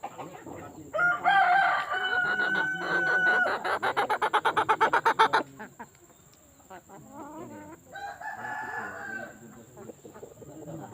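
A rooster crowing loudly, a long held call that breaks into a fast pulsing run before cutting off; a second, fainter crow comes about eight seconds in.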